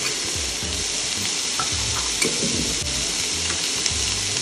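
Diced onions, tomatoes and capsicum sizzling steadily in a frying pan, with a few light clicks of a steel spoon on a plate as red chilli powder is scraped in.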